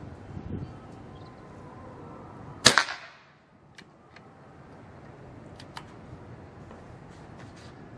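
A PCP air rifle with a stainless air tube fires once, about two and a half seconds in: a single sharp crack with a short fading tail. A few faint clicks follow.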